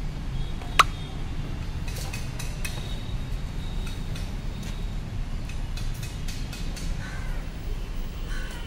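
Steady low background rumble with a single sharp click about a second in, and a few faint bird calls near the end.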